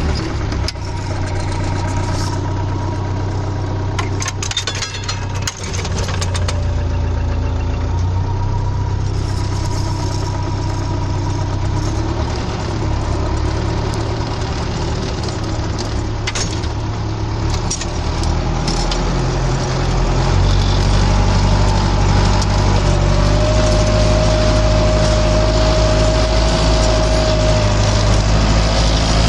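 Massey Ferguson 590 tractor's four-cylinder diesel engine running steadily while pulling a plough, with scattered clanks and knocks; it gets a little louder about two-thirds of the way through.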